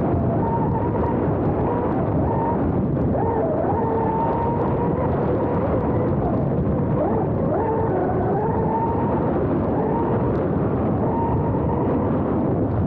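Fast-electric RC F1 boat's brushless outboard motor whining, its pitch rising and falling with the throttle, under a loud steady rush of water and wind heard from a camera mounted on the hull.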